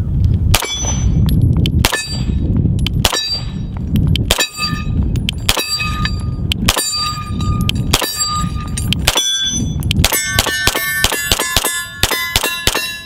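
Beretta PX4 Storm pistol firing at steel targets. There are eight shots about a second apart, each followed by the ring of a struck steel plate. Near the end comes a rapid string of about ten shots with overlapping rings.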